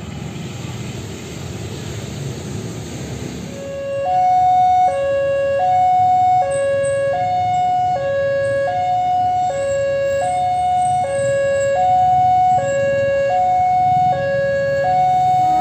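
Low rumble of an approaching train, then from about four seconds in an electronic two-tone railway level-crossing alarm alternating steadily between a low and a high tone, each held about 0.8 s, warning that a train is coming.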